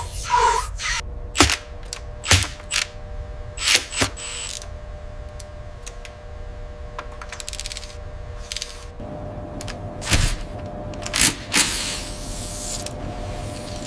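Mechanical clicks and small metallic taps at irregular intervals, clustered in the first few seconds and again around ten seconds in, over a faint steady hum. A short hiss comes near the end.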